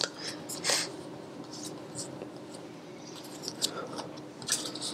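Trading cards being handled and slid across a cloth playmat: a few brief, scattered swishes and light taps.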